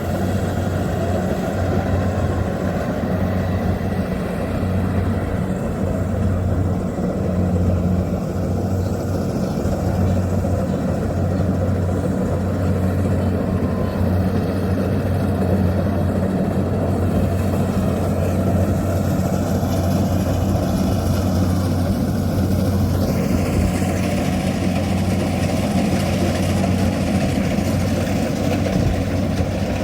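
Engine of a Kubota rice reaper running steadily with a deep, even hum; about three quarters of the way through, a higher hiss joins it.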